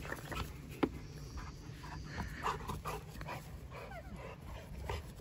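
A dog whining and panting in short, scattered bursts over a steady low hum.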